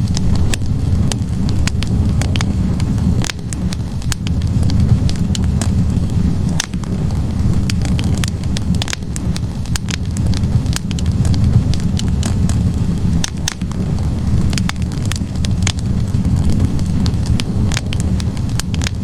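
Wood fire burning in a fireplace: a steady low roar of the flames with frequent, irregular sharp crackles and pops from the burning logs.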